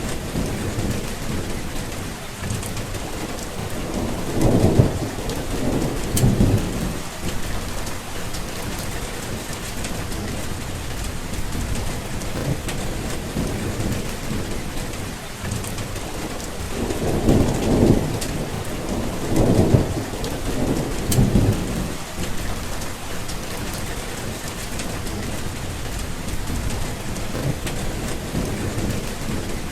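Steady rain falling, with fine drop ticks, and thunder rumbling in two spells: one about four seconds in and a longer one from about seventeen seconds in, each made of a few low swells.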